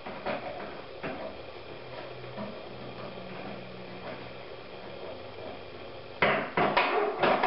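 Faint handling clicks, then about six seconds in a quick run of loud knocks and clanks as a saw clamped between two wooden sticks is worked into a bench vise and the vise is tightened.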